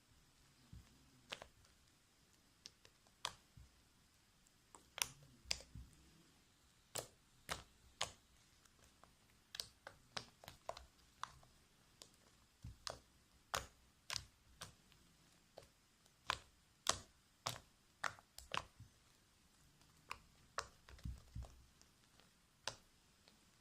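Fluffy slime being kneaded and pulled in the hands, giving irregular sharp clicks and small snaps as the still-sticky slime sticks to and peels off the fingers, with a few soft low thuds.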